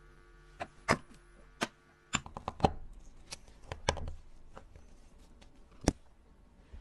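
Small, sharp metal clicks and taps, about a dozen, as a tool works at the strap lug of an old Tissot watch case to free the spring bar and take off the leather strap. They come in uneven groups, loudest about a second in, around two and a half seconds and near six seconds.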